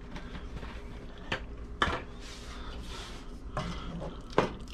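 Wooden spoon stirring thick chili in a metal pot, knocking against the pot's side about four times, the loudest about two seconds in.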